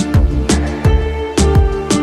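Background music with a steady beat of about two drum hits a second under sustained melodic notes.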